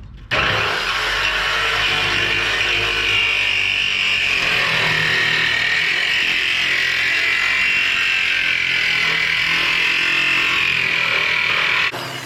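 A power tool running under load on the steel drum of a barrel stove build, a steady high-pitched noise whose pitch sags and recovers slowly. It starts abruptly just after the start and cuts off near the end.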